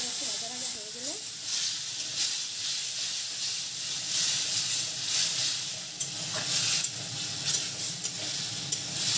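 Spice paste sizzling as it fries in hot oil in a kadai, while a steel spatula stirs and scrapes through it in repeated strokes. This is the masala being fried down (kashano) before the vegetables go in.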